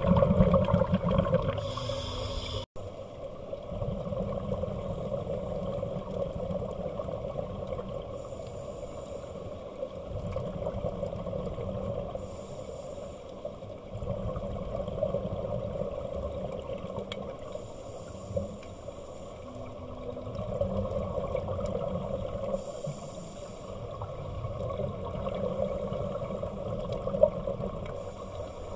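Scuba divers breathing through regulators, heard underwater: a steady low rumble of water and bubbles, with a short hiss recurring about every four to five seconds. The sound breaks off abruptly for an instant about three seconds in, then carries on quieter.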